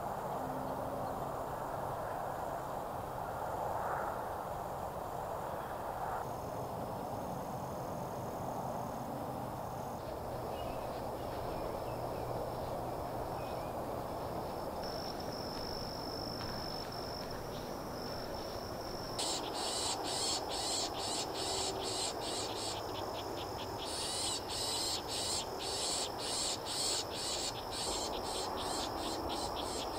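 Insects calling in woodland: a steady high buzz, joined about two-thirds of the way through by a louder pulsing chirp repeating about twice a second, over a steady low background noise.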